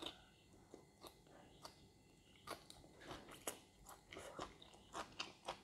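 Faint close-up chewing of a mouthful of fried rice and fresh herbs, with soft irregular crunches that come more often in the second half.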